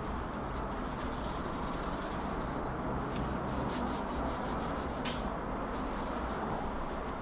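Tissue pressed on a computer part and rubbed back and forth, a dry scraping rub over steady background hiss.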